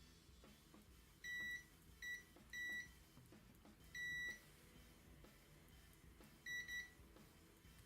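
Multimeter continuity tester beeping in short, irregular high beeps, five or six of them, as it checks the contacts of a mouse button's microswitch. The contact closes only sometimes, a sign of a worn or dirty switch contact.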